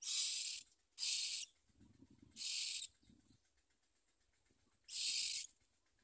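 Common myna nestlings giving harsh, hissing begging calls: four short bursts, each about half a second long, the begging of hungry chicks gaping for food.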